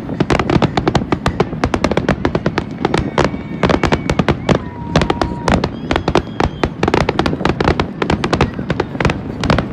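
Fireworks display exploding in a rapid, dense barrage of many bangs and crackles a second.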